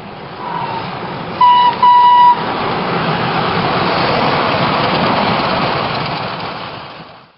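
Train horn sounding two short loud toots, after a faint brief one, followed by the rumble of the passing train, which swells and then fades out near the end.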